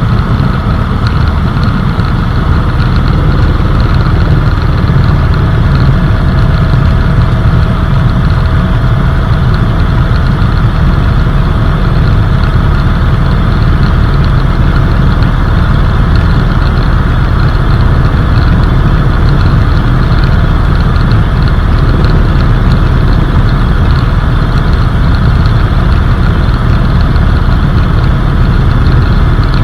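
Helicopter in flight, heard from inside the cabin: loud, steady engine and rotor noise that stays even throughout.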